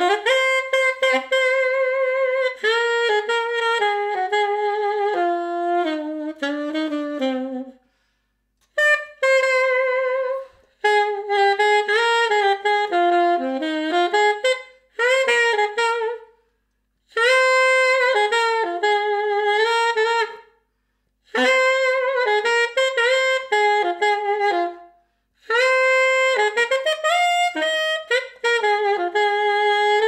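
Unaccompanied saxophone playing a jazz melody, recorded through a ribbon microphone, in phrases separated by short pauses, with vibrato on the held notes.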